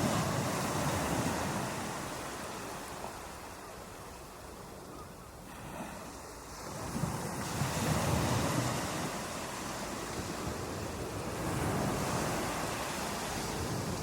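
Ocean waves breaking on a beach, surging in and washing back. The surf swells at the start and again about halfway through, with a softer lull between, with some wind noise on the microphone.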